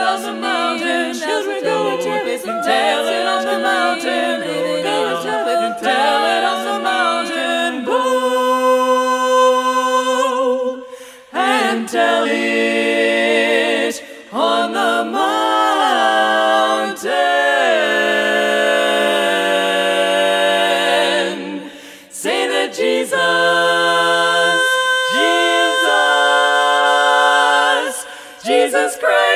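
Women's barbershop quartet singing a cappella in close four-part harmony, holding long sustained chords with a few brief breaks between phrases.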